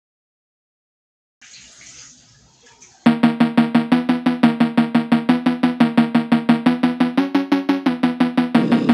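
Background music: about a second and a half of silence, a soft hissing swell, then a track kicks in with a fast repeating synth note, about seven pulses a second, which briefly steps up in pitch. Drums join near the end.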